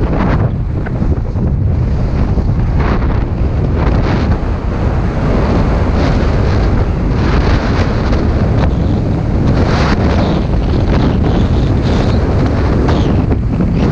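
Wind buffeting the microphone of a camera carried by a skier descending at speed: a loud, steady rumble. Short swells of hiss, typical of ski edges scraping packed snow at the turns, come and go over it.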